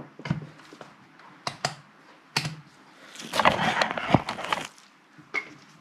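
Plastic clicks and knocks of a handheld multimeter and its test probes being handled on a workbench, a few sharp clicks about a second apart, then a longer rattling shuffle from about three and a half seconds in.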